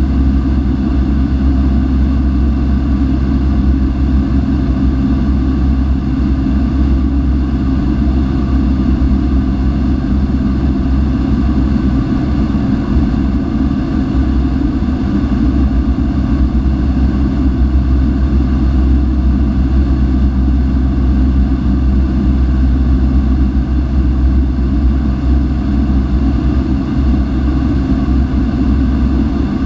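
A Cessna 172's piston engine and propeller droning steadily in flight, heard from inside the cabin.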